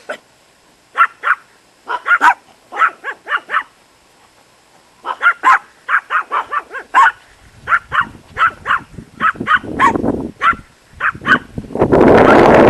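Small dogs, Chihuahuas, barking in quick, high yaps, bout after bout, with a short lull about four seconds in. Near the end a loud rushing noise swells up over the barking.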